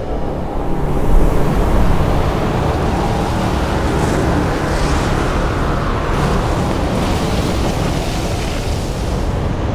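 Loud rushing wind noise, swelling about a second in and then holding steady, with a few brief hissing whooshes around four to six seconds in.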